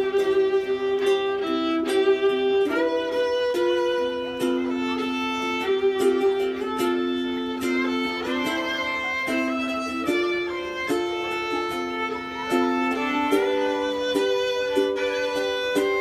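Live violin playing a melody in long, held notes over a strummed acoustic guitar accompaniment.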